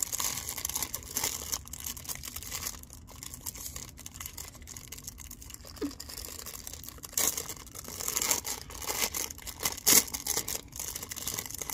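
Clear plastic packaging bag crinkling and crackling in irregular bursts as it is handled and pulled open, with the loudest crackle about ten seconds in.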